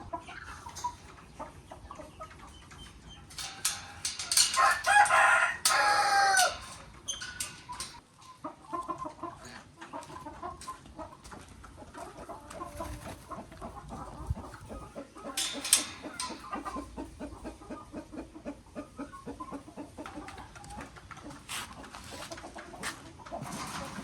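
Chickens calling: a rooster crows loudly once, a few seconds in, and then hens cluck softly and steadily, with a few sharper squawks.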